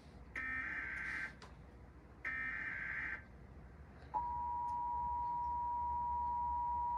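Emergency Alert System SAME header: two bursts of digital data screech, each about a second long, the last two of the header's three repetitions. About four seconds in, the EAS two-tone attention signal (853 and 960 Hz sounded together) starts and holds steady. It marks the start of a statewide Required Monthly Test.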